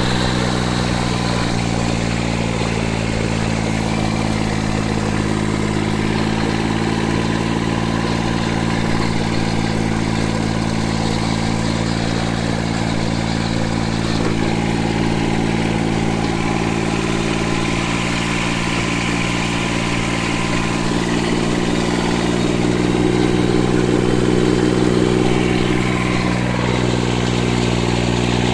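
The three-cylinder diesel engine of a John Deere 670 compact tractor running steadily under load, puffing black smoke from its upright exhaust as it drives a rotary tiller; it gets a little louder about three quarters of the way through.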